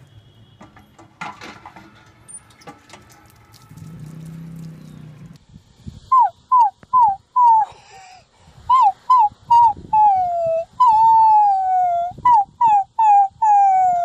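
Dachshund puppy howling. About six seconds in, a run of short cries starts, each falling in pitch. A longer drawn-out howl follows, then more short cries.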